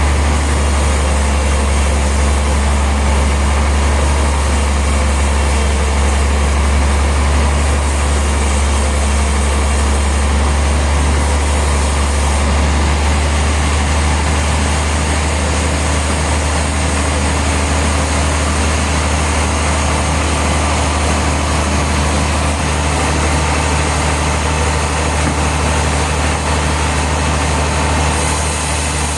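Heavy sawmill machinery running steadily: a deep engine drone under a constant noisy hiss, with no change in pitch or load.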